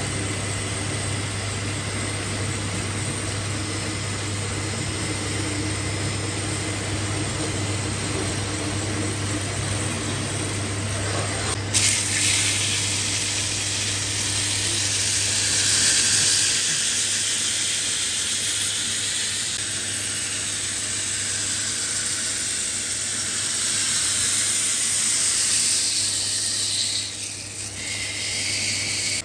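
Lathe running with a steady low hum. About twelve seconds in a loud hiss starts suddenly and goes on until shortly before the end.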